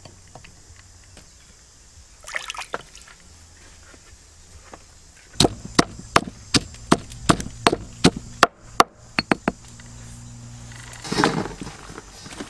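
Wooden pestle pounding chilies and garlic in a stone mortar: a run of sharp knocks, about three a second, lasting about four seconds from midway. Near the end comes a brief rustling clatter.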